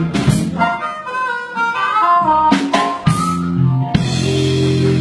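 Live blues band playing: harmonica carrying the melody over electric guitar, bass and drums, closing about four seconds in on a final hit and a held chord.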